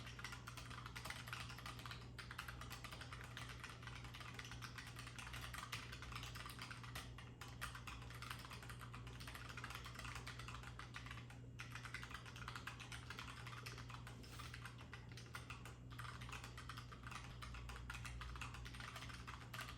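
Fast, continuous typing on a low-profile Keychron mechanical keyboard with brown switches: a dense run of quick key clicks, broken by a few brief pauses.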